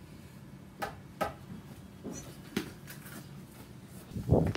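A handful of short, sharp taps and footfalls, irregularly spaced, as a backyard cricket bowler runs in to bowl; just before the end a loud, rough burst of noise starts.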